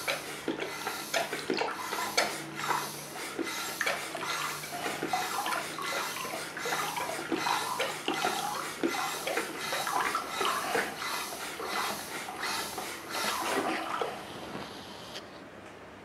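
Water splashing into a drinking glass from a hand-press pump on a water-gallon bottle, with the pump's plastic top clicking in quick repeated strokes about twice a second. The sound cuts off sharply near the end.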